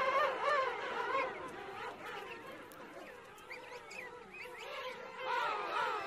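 Gentoo penguins calling: wavering, braying cries from several birds, strong at first, dying down in the middle with a few short higher chirps, then rising again near the end.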